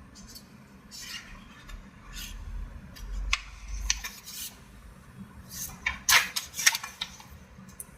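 Short scratchy strokes and ticks of handwriting, a pen or marker being moved and tapped across the writing surface in irregular bursts, the loudest cluster about six seconds in.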